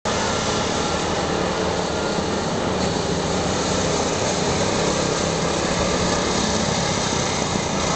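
Small go-kart engines running steadily as two karts drive around the track.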